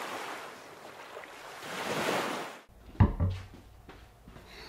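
A swelling whoosh sound effect for an animated logo intro, growing louder and then cutting off suddenly. After it come two sharp thumps and a few lighter knocks as a man walks up and sits down at a wooden desk.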